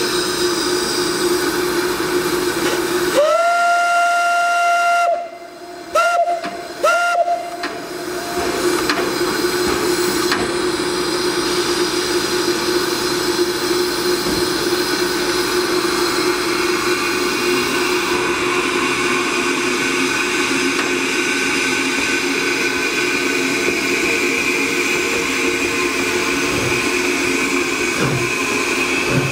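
Steam locomotive whistle: one long blast about three seconds in, then two short toots, over a steady hiss of escaping steam. A sharper, higher steam hiss builds from about halfway on.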